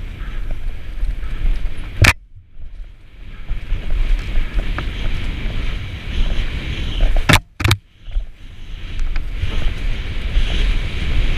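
Downhill mountain bike running fast down a dirt trail: tyre rumble over the ground and wind rushing over a helmet-mounted camera's microphone. Two sharp knocks, about two seconds in and about seven and a half seconds in, each followed by a brief drop almost to quiet.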